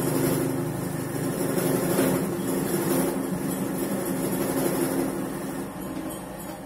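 Mill-drill motor and spindle running steadily as a valve-seat cutter turns in the valve seat of a Kawasaki KLX150 cylinder head, easing off near the end.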